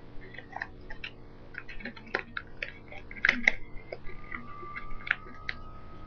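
Sheet of paper being folded and creased by hand: irregular crinkles and crackles, busiest about three seconds in.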